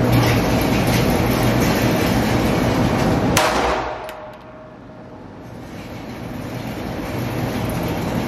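A single sharp handgun shot about three and a half seconds in, over a loud steady rushing noise with a low hum; after the shot the rushing noise drops off and slowly builds back up.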